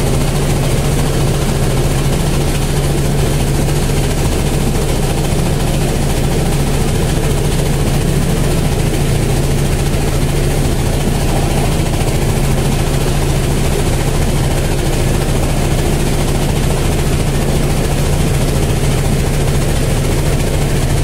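A riverboat's engine running steadily at one unchanging pitch, heard from on board, under a constant broad hiss.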